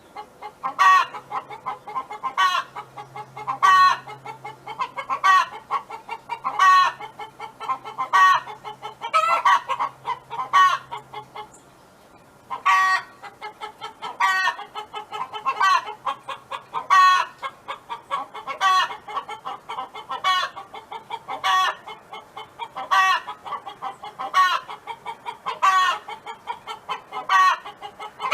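A hen cackling: runs of short clucks, each building to a loud squawk, about every one and a half seconds, with a brief pause about twelve seconds in.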